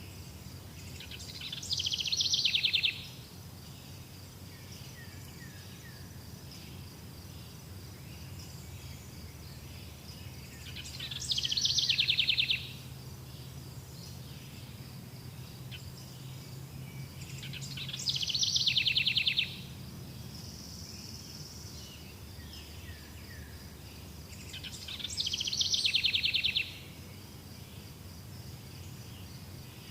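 A songbird repeats one short song four times, each a fast trill that grows louder for about a second and a half and then stops abruptly. Under it runs a steady high insect drone.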